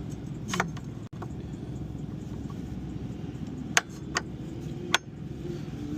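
Four short metallic clicks and clinks as the motorcycle brake caliper, fitted with new pads, is slid back over the brake disc. The clicks come about half a second in and three more between four and five seconds in, over a steady low background rumble.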